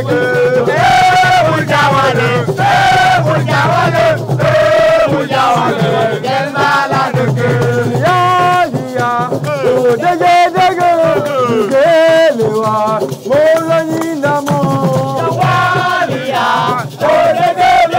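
A voice singing a melody over steady rattle or shaker percussion.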